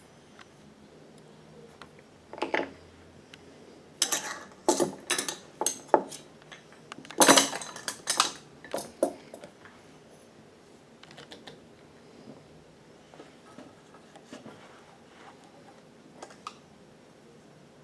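Sharp metallic clicks and clinks from hands working on the open hook and bobbin area of an industrial sewing machine, in quick clusters that are densest and loudest in the middle, then a few faint ticks.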